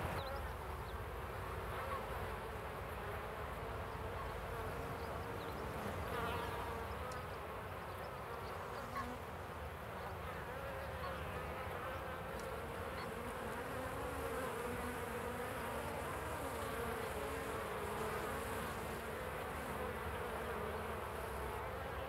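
Ouessant black honeybees buzzing in numbers around their hives: a steady hum of many overlapping, wavering pitches.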